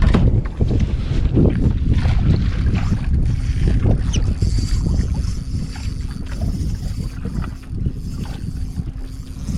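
Wind buffeting the microphone aboard a small fishing boat, a steady low rumble with scattered clicks and knocks of handling. A faint steady hum comes in about four seconds in.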